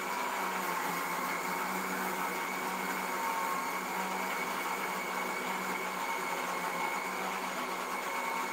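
Electric mixer grinder running steadily with an even motor whine, grinding green chutney of green chillies, ginger, garlic, coriander leaves and curd.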